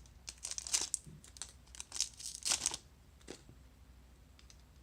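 Foil Yu-Gi-Oh! booster pack wrapper being crinkled and torn open: a run of short, sharp rustles and tears that stop about three and a half seconds in.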